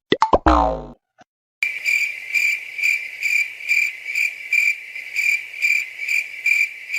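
Crickets chirping in an even, pulsing rhythm, roughly two chirps a second, starting after a brief silence. Just before that, a short cartoon sound effect slides down in pitch.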